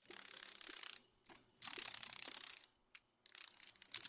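Dragonfly wing sound effect: a dry, fast rattling buzz in several bursts, a long one at the start and others after short gaps.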